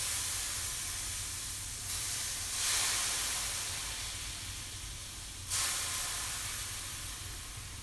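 Vodka hissing and sizzling as it boils off in a hot stainless steel skillet holding browned bits from frying chicken. The hiss slowly dies down, swelling again about two seconds in and about five and a half seconds in.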